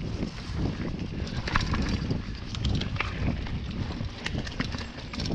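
Hardtail mountain bike with a 100 mm fork riding down rocky dirt singletrack: irregular thuds and rattling clatter as the tyres and rigid frame hit stones and roots, with scattered sharp clicks.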